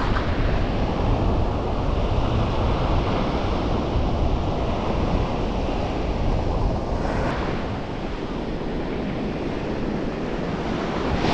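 Surf breaking and washing up a pebble beach, a steady rushing hiss, with wind rumbling on the microphone.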